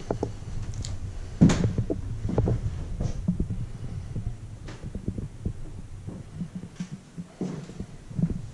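Footsteps and handling noise from an action camera carried by hand, an irregular string of low thuds with a sharper knock about a second and a half in.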